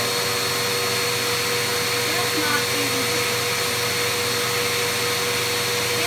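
Vacuum cleaner running steadily with a constant motor whine, its hose and brush attachment being worked over a husky's fur.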